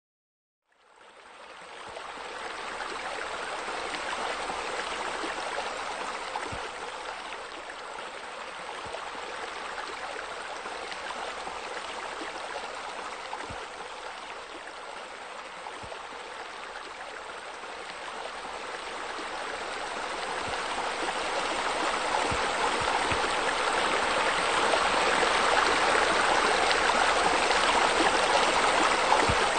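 Steady running, splashing water, like a fountain or spillway. It fades in over the first couple of seconds and grows gradually louder toward the end.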